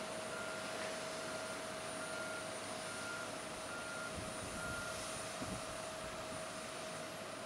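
Steady mechanical whine over a rushing hiss from jet machinery on the apron beside a parked Boeing 767 freighter. A short high beep repeats about every 0.8 s and stops about halfway through.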